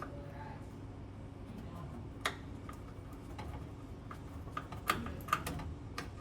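Small screwdriver clicking and tapping against the thermostat wire terminal screws as the red and white wires are undone: a few sharp, scattered clicks, the clearest about two seconds in and twice around five seconds in, over a low steady hum.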